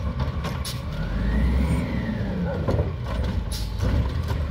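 Diesel engine of a WhiteGMC Amrep Octo automated side-loader garbage truck revving up to drive the side arm's hydraulics as the emptied recycling cart is brought back down to the curb. A whine rises and falls in pitch, and several clanks and knocks come from the arm and the plastic cart.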